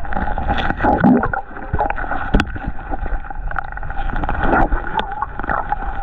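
Creek water splashing and gurgling as the water is stirred, with a few sharp knocks, the loudest about halfway through, and a steady tone underneath.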